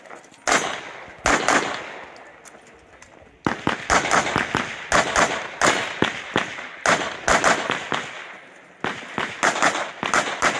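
Handgun shots in rapid strings as a competitor shoots a practical-shooting stage: two single shots near the start, then fast volleys from about a third of the way in, a short pause, and another string near the end. Each shot has a brief echoing tail.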